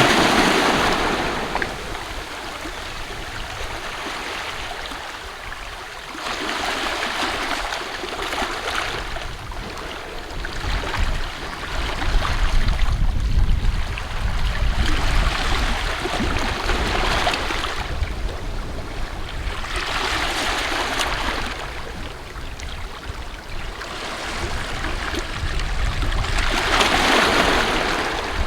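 Sea of Japan waves washing onto the shore, swelling into a hissing surge of surf every several seconds. A low wind rumble on the microphone comes and goes underneath.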